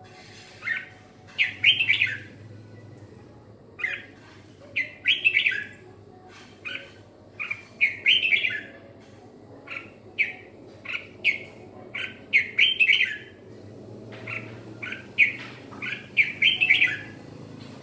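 Red-whiskered bulbul singing: short phrases of two or three bright, quick notes, repeated about every second.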